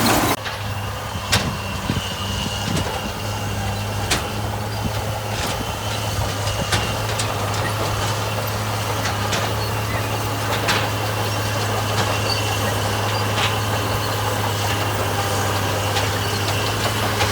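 Diesel engine of a piece of heavy construction equipment running steadily with a deep hum. A light sharp click comes about every second and a third.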